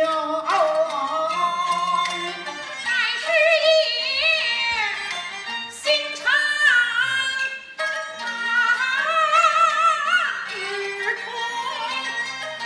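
Peking opera singing: a high, wavering vocal line with heavy vibrato and sliding ornaments over a bowed-fiddle accompaniment, with a couple of sharp strikes.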